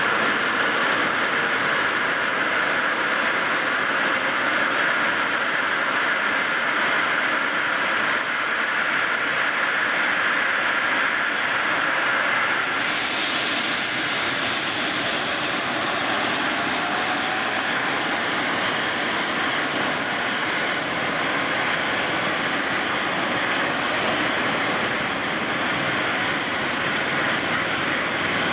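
Airbus EC135 rescue helicopter's twin turboshaft engines running on the ground during start-up, main rotor turning. It is a steady, loud turbine noise with a high whine that slowly climbs in pitch, and the tone of the upper whine shifts about halfway through.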